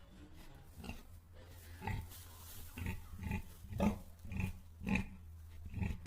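Pig grunting: a series of short grunts, about one or two a second.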